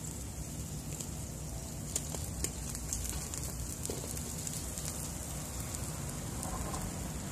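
Fish sizzling and crackling over hot charcoal in a wire grilling basket, with a few sharp pops about two seconds in, over a steady low rumble.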